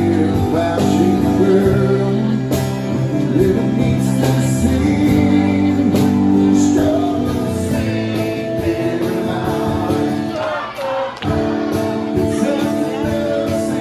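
Music with a singing voice over sustained chords, with a short break and a chord change about eleven seconds in.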